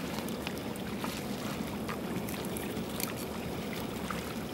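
Water splashing and trickling as swimmers move through a shallow, reedy lake pushing waterproof dry bags. The sound is steady, with small splashes scattered through it.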